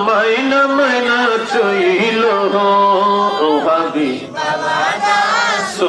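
A man singing a Bengali devotional song into a microphone, drawing out long, wavering held notes between the lines of the refrain, with a short break about four seconds in.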